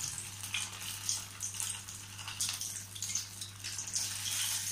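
Hot oil sizzling with fine crackles as a breaded curd rice fritter deep-fries in a small kadai.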